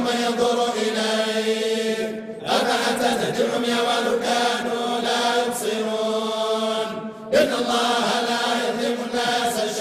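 A group of men reciting the Quran in unison in the Moroccan collective (hizb) style, a long drawn-out chant held on a steady pitch. It breaks briefly for breath about two seconds in and again about seven seconds in.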